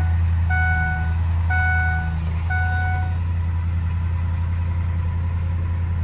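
Ford Econoline van engine idling steadily just after starting, now that the crank-no-start is cured by a repaired body-to-frame ground. A dashboard warning chime beeps about once a second, three times, and stops about three seconds in.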